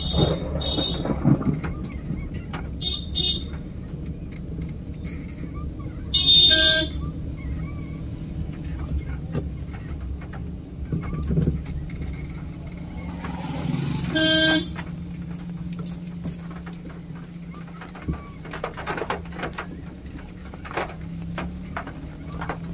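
Vehicle horn honking while driving. A few short high beeps come in the first three seconds, then two louder honks about six and fourteen seconds in, over the steady low rumble of the moving vehicle and road.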